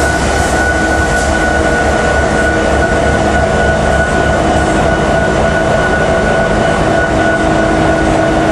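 EMD SD70ACE diesel-electric locomotive running close by at slow speed: a steady engine rumble with several constant whining tones over it.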